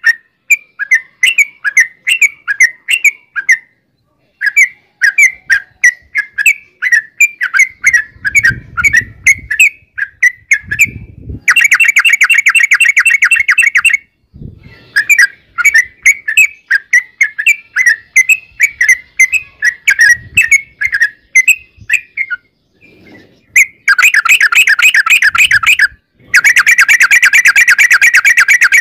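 Yellow-vented bulbul singing: runs of quick chirpy notes, several a second, broken by long, fast rattling trills about eleven seconds in and again near the end.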